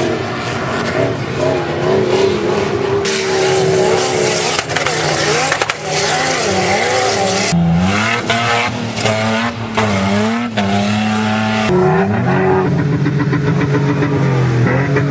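4x4 SUV engines, Toyota Land Cruisers among them, revving hard as they power up and slide across sand dunes, the pitch rising and falling again and again. The sound changes abruptly a few times as one vehicle gives way to another.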